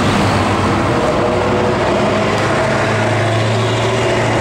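Steady mechanical drone of a running motor, with a low hum that strengthens about three seconds in, over a wash of traffic-like noise.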